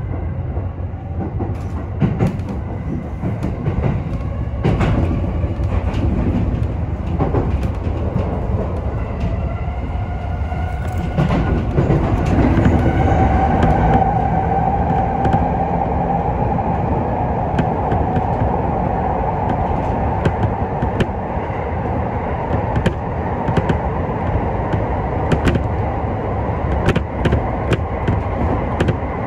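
Sotetsu electric commuter train running on the Izumino Line: a steady low rumble with a whine from the traction motors, which settles into a steady hum about halfway through. Sharp clicks of the wheels over rail joints come throughout.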